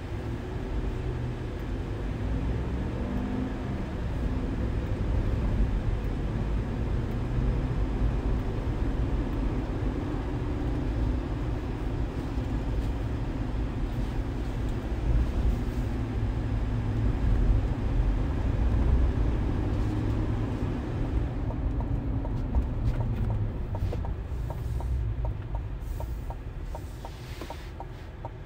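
In-cabin sound of a 2022 GMC Sierra AT4-X pickup on the road: its 6.2-litre V8 and tyres make a steady low rumble. The engine pitch climbs in the first few seconds as the truck pulls away, then holds. It eases off and quietens in the last several seconds as the truck slows, while a fast, even ticking starts up.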